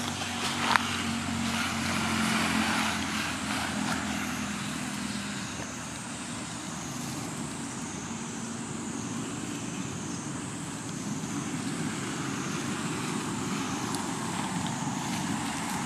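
Motor vehicle engine hum passing in the background over a steady outdoor din, with a sharp click about a second in.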